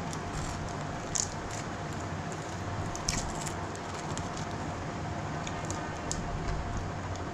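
Steady room noise: a constant hiss and low hum with a faint steady tone, broken by a few short, faint clicks.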